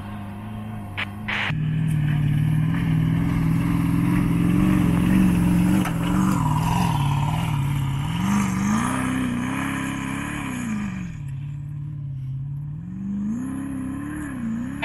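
Off-road 4x4 SUV engines working hard on a steep hill climb, the engine note rising and falling again and again as the throttle is worked. The sound dips lower and quieter about three-quarters of the way through, then revs up once more.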